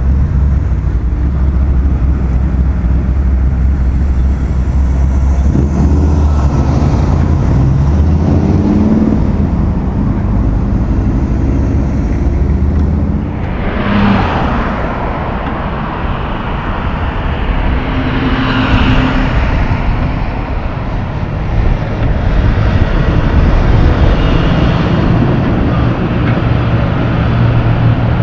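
Road traffic: a deep engine rumble from vehicles, then cars passing one after another, with a heavy truck's engine droning steadily near the end.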